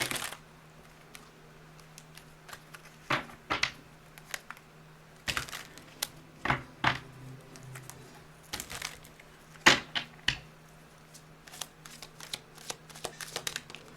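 Flashcards being shuffled and handled: irregular sharp flicks, slaps and short rustles of card stock, over a faint steady low hum.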